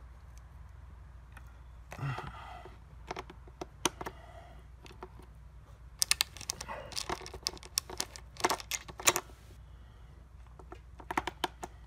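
Loose steel saw chain from an 18-inch Oregon bar-and-chain being handled and fitted onto a chainsaw bar and sprocket: metal links clicking and rattling, with a brief rustle about two seconds in, then dense runs of rapid clicks in the second half and a shorter run near the end.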